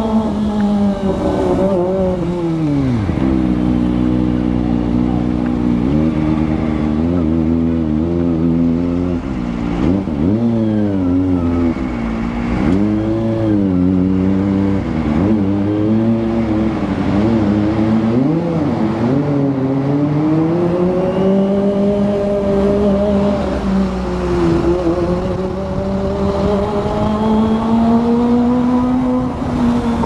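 Kawasaki ZX-25R's 250 cc inline-four engine under way, its revs dropping sharply in the first few seconds, then rising and falling again and again, with a steadier stretch later on and climbing again near the end.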